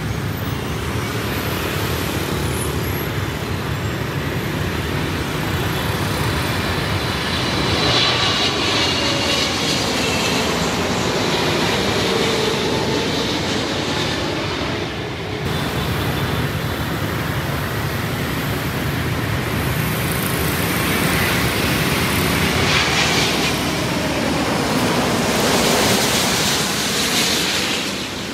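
Jet airliners passing low overhead on landing approach: a Boeing 777 freighter's engines swell to their loudest about eight seconds in and fade, with a gliding whine as it goes by. After an abrupt break about halfway, a Vietnam Airlines Airbus A350 on final approach builds to its loudest near the end.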